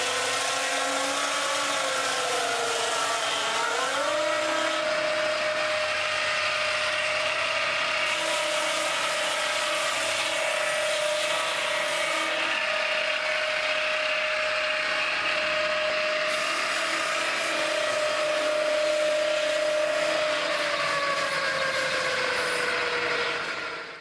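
Peterson ASM swingblade sawmill's circular blade running through a log, a steady whining saw note. The pitch sags about three seconds in, picks back up, then slowly drops near the end before the sound fades out.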